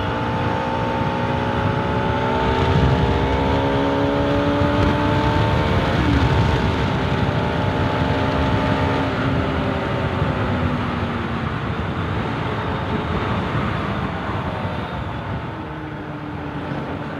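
Bajaj Pulsar RS200's single-cylinder engine pulling under acceleration. Its note climbs steadily for the first several seconds and dips at a gear change about six seconds in, then holds before fading under a steady rushing noise as the throttle eases, picking up again near the end.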